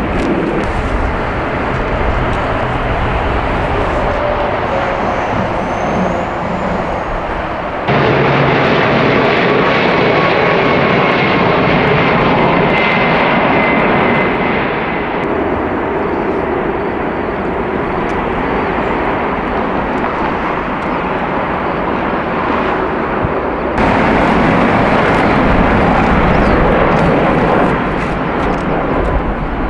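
Jet engines of heavy airliners on landing approach, a loud steady rush with a faint high whine in the middle part. The sound changes abruptly about eight seconds in and again about twenty-four seconds in, as from one aircraft to the next.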